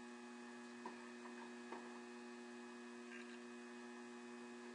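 Near silence: a faint steady electrical mains hum, with two light ticks about a second and a half apart.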